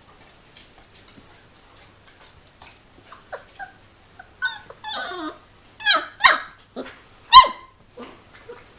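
Three-week-old Giant Schnauzer puppies yipping and squealing as they play-fight, after a few quiet seconds of soft scuffling. Then comes a run of short high calls, some falling in pitch, the loudest a sharp yelp near the end.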